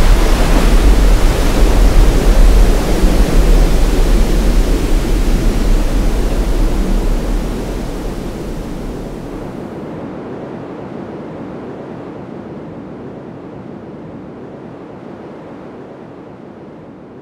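Hurricane-force wind blowing loudly around a house, with a heavy rumble of wind buffeting the microphone. It fades out slowly over the second half until it is faint near the end.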